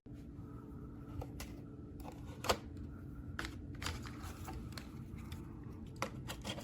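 Portable cassette player running a tape with a faint steady hum and hiss before any recorded sound comes through, with scattered light clicks.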